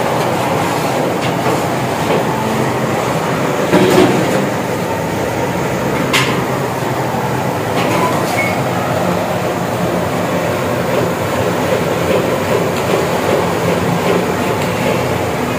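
A large pot of carrot halwa being stirred over a steady, loud rumbling background, with a few sharp knocks about four and six seconds in.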